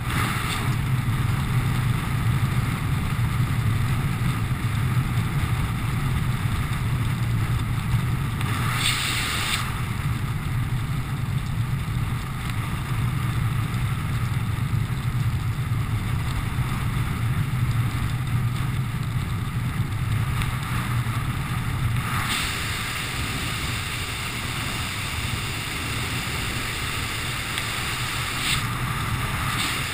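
Wind rushing over a helmet-mounted camera under an open parachute canopy: a steady low rumble, with a brief louder gust about nine seconds in and another about twenty-two seconds in.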